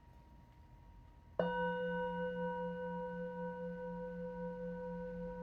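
Large brass Tibetan singing bowl struck once with a velvet-covered wooden mallet about a second and a half in, then ringing on with a low, gently wavering hum under several higher tones, fading only slowly.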